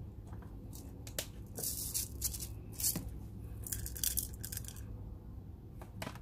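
Peppercorns and chopped garlic dropped by hand onto onion and ginger slices in a nonstick pot: scattered light clicks and rattles, with short rustling patches about two seconds in and again around four seconds.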